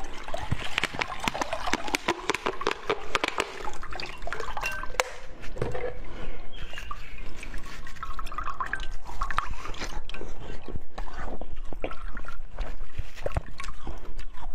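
Thin plastic bottle crackling and crinkling with many sharp irregular clicks as it is squeezed and peeled off a block of frozen blue drink.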